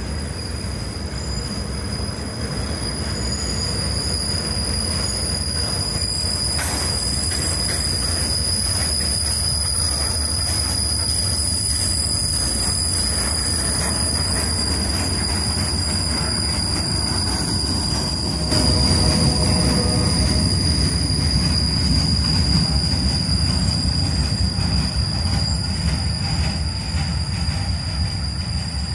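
Freight train of rail-carrying flatcars loaded with steel rail rolling past, its wheels rumbling on the track with a steady high-pitched wheel squeal. It gets louder about two-thirds of the way through.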